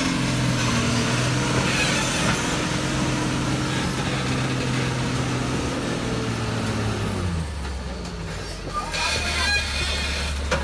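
Tata truck's diesel engine pulling steadily as the tractor-trailer crawls through mud, its note dropping and easing off about seven and a half seconds in. A brief hiss near the end.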